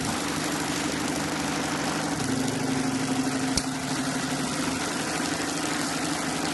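Computerized sewing machine running steadily at a constant speed, stitching in one continuous run with a steady low hum.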